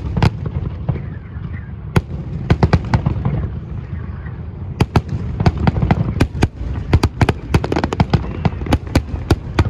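Fireworks display: aerial shells bursting in a string of sharp bangs over a continuous low rumble, the bangs coming thicker and faster from about halfway through.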